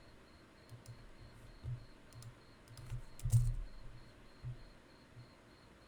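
Scattered clicks and taps of a computer keyboard and mouse, with soft low thumps; the loudest cluster comes about three and a half seconds in.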